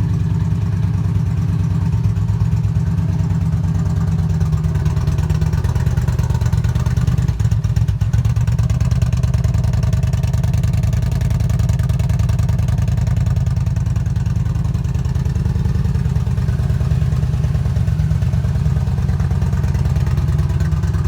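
Yamaha V Star 950's V-twin engine idling steadily just after starting up on a newly installed battery.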